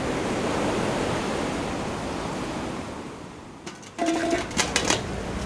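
Ocean surf washing on a beach, a steady rushing that fades down over the first three seconds or so. About four seconds in, a few short clicks and clinks begin.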